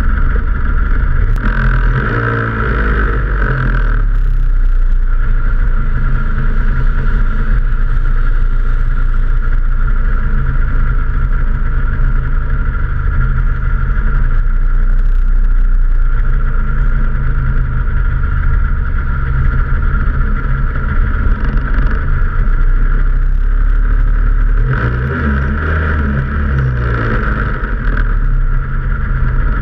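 Snowmobile engine running steadily at idle while the sled sits still, heard close up. Its note shifts about for a few seconds near the end.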